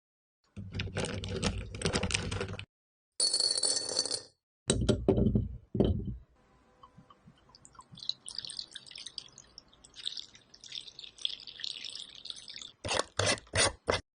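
A cut-together run of short kitchen sounds from making green plum wine. It goes from a rustling, knocking stretch to a bright ringing clink, then some knocks, then several seconds of faint crackling, and ends with a few quick sharp knocks.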